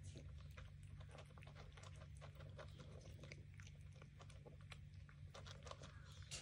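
Tabby cat eating from a bowl, chewing its food with many faint, irregular little clicks.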